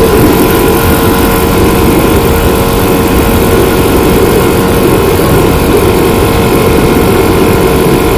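A vehicle engine running steadily close by, a loud constant drone with a fixed hum that does not rise or fall.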